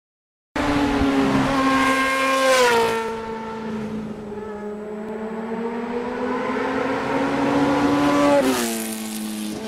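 Motorcycle engine accelerating through the gears over wind rush. It starts abruptly, drops in pitch at a gear change about two and a half seconds in, climbs steadily as the bike speeds up, then drops again at another shift near the end.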